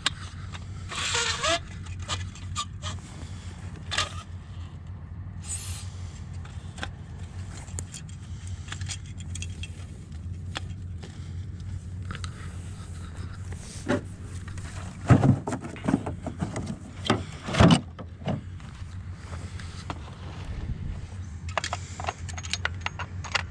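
Clicks, scrapes and rattles of a metal tripod being set up and a rotating laser level fitted onto it, with two louder knocks about fifteen and eighteen seconds in. An engine idles steadily underneath.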